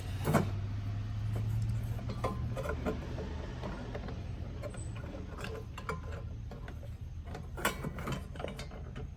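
Scattered light clicks and taps of metal fittings and hand tools being handled while the heater-line fittings are threaded on, over a steady low hum.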